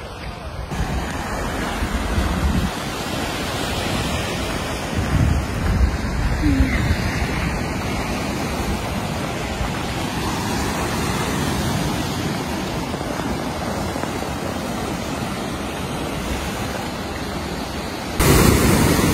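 Ocean surf breaking on a rocky shore, a steady rushing, with wind gusting on the phone's microphone in low rumbles. It gets louder for a second or so near the end.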